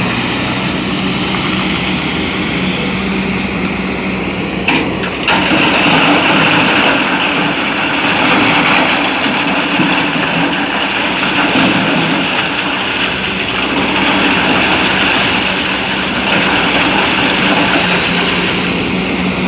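Excavator running steadily under load, with two sharp clanks close together about five seconds in.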